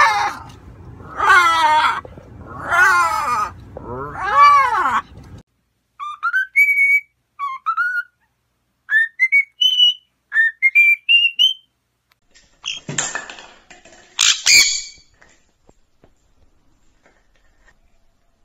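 Blue-and-gold macaw giving four loud, harsh squawks, about one every one and a half seconds, then a cockatiel whistling a run of short rising notes. Near the end come two harsh screeches, and then it goes quiet.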